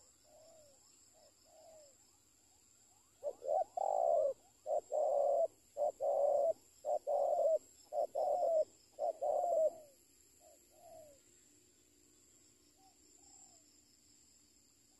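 Spotted dove cooing: a few soft coos, then from about three seconds in a long run of loud, evenly spaced coos lasting some seven seconds, trailing off into faint calls.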